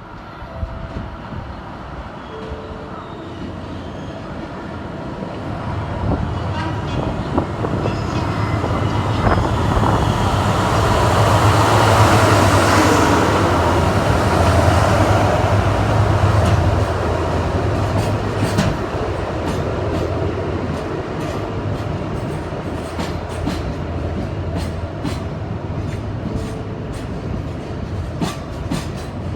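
Freight train passing: the locomotive's low hum grows louder to a peak in the middle, then the wagons rumble by with a quick run of wheel clicks over the rail joints.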